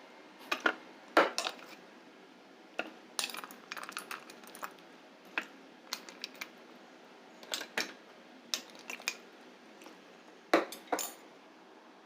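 Metal kitchen utensils and cookware clinking and knocking, irregular sharp clicks spread out, with a couple of louder clanks about a second in and near the end.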